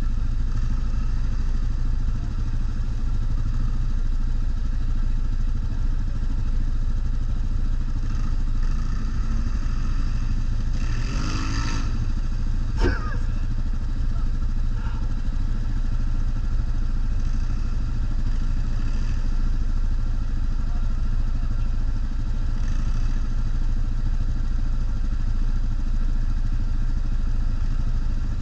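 ATV (quad bike) engine running steadily with a constant low rumble, and one sharp knock about thirteen seconds in.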